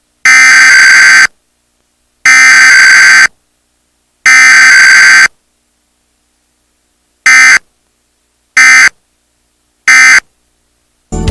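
Emergency Alert System SAME data bursts, very loud: three digital header bursts of about a second each, a second apart, then three short end-of-message bursts.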